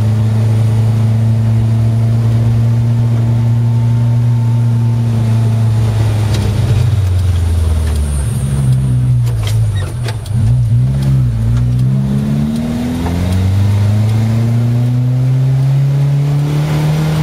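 Car engine heard from inside the cabin while driving, running at a steady note at first. About halfway through, the engine note drops and wavers, then it climbs steadily in pitch as the car picks up speed again near the end.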